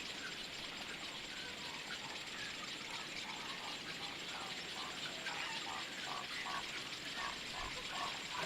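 Wetland bird-colony ambience: a steady high-pitched hiss with a rhythmic run of short animal calls, about two a second, starting about two seconds in and growing louder toward the end.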